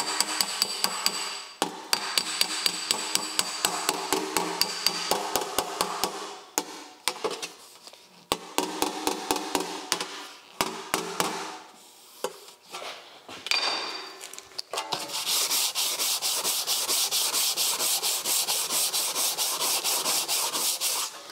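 A body hammer tapping quickly on a dented sheet-steel motorcycle fender, in runs of light strikes with short pauses, the panel ringing under the blows as the dent is worked smooth. About fifteen seconds in the tapping gives way to a steady rasp of 80-grit sandpaper on a hard hand block, stroked over the panel.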